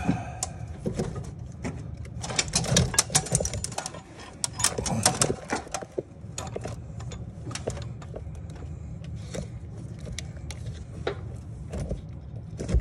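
Metal clinks and rattles of hand tools and loose bolts on an engine's cylinder head as it is stripped, coming in quick runs of clicks over a steady low hum.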